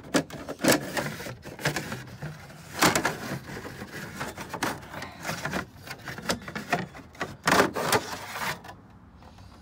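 Plastic trim panel being handled and shifted against the truck's door jamb: irregular clattering knocks and rubbing, with a few louder knocks spread through.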